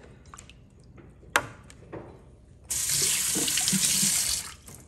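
Soaked quinoa being swished by hand in a container of water, soft sloshing with one sharp knock about a second in. About two and a half seconds in, a kitchen faucet starts running full into the sink for nearly two seconds, then stops.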